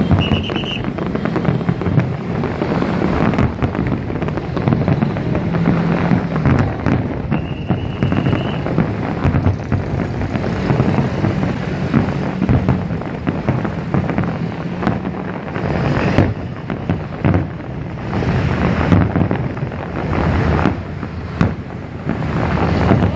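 Aerial fireworks shells bursting in a dense, continuous barrage of overlapping booms and crackles, with a couple of brief high whistles.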